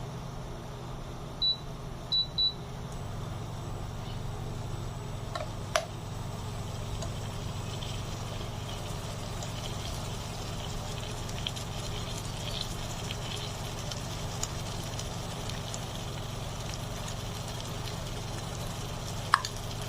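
Fish curry cooking in a pan on the stove: a steady low hum with faint scattered crackling from the simmering sauce. Three short electronic beeps sound about a second and a half in, and there are a couple of sharp clicks, one about six seconds in and one near the end.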